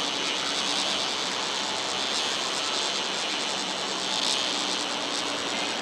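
Steady outdoor noise of a busy railway station and the city around it: an even hiss with a strong high band, and a few faint steady tones underneath.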